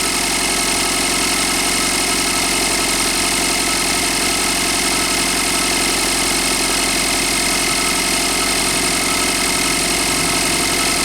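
Range Rover Evoque's 2.0 turbocharged direct-injection Ford engine idling steadily while warming up. The engine has worn variable valve timing (VVT) cam pulleys, the chronic fault on this engine, which the mechanic says knock once it warms.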